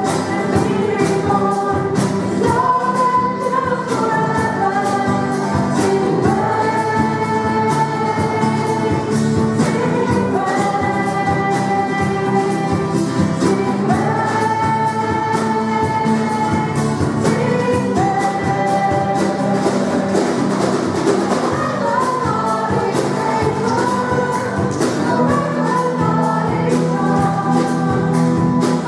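Church worship band playing a gospel-style praise song, with drum kit, guitar and several voices singing together over a steady cymbal beat.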